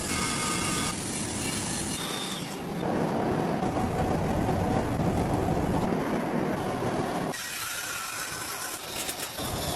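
Steady rumble and clatter of heavy forge machinery, changing abruptly several times: about a second in, near three seconds and near seven and a half seconds.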